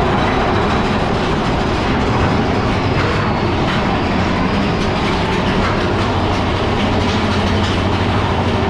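Mine-train roller coaster running along its track, a loud steady rumble and rattle of wheels on rail. It is heard from on board the moving train.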